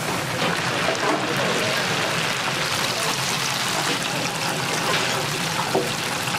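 Hot oil in a commercial deep fryer sizzling and crackling steadily around frying tempura batter.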